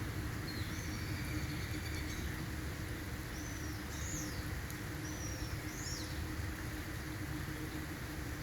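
Steady rain with a low rumble under it, while a bird calls over it with a few short chirps that rise and fall in pitch, stopping a little past the middle.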